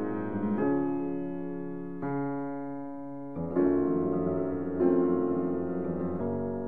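Background music: piano chords struck in turn, each one held and fading before the next, about every second and a half.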